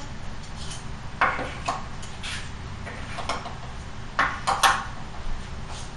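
Numbered cards being handled and hung on the pegs of a pegboard: a handful of short, light clacks and rustles at irregular intervals, over a low steady hum.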